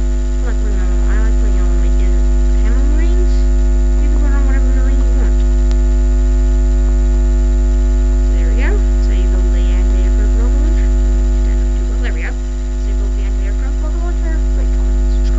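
Loud, steady electrical mains hum with many overtones.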